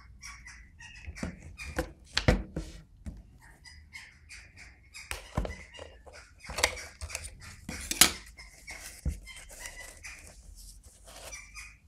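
Plastic handling clicks and knocks: a compact cassette lifted out of a portable Sanyo cassette recorder and turned over in the hands, then the recorder's plastic case handled. Irregular small clicks, with several sharper knocks.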